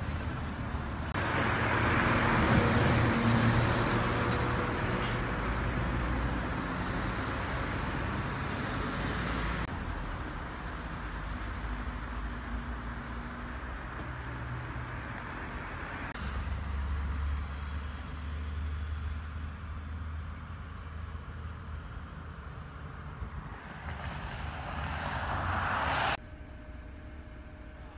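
Outdoor noise with road traffic passing, swelling and fading. The sound changes abruptly several times where the shots are cut together.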